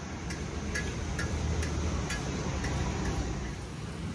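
Sharp clicks, roughly two a second at fairly even spacing, over a steady low rumble.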